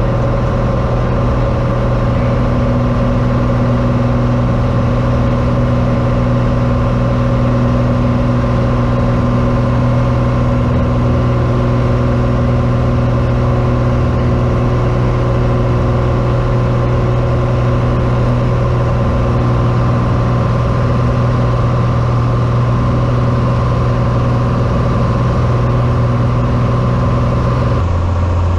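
Cessna 182T's six-cylinder Lycoming engine and propeller droning steadily, heard inside the cabin. Near the end the note steps abruptly down to a lower pitch.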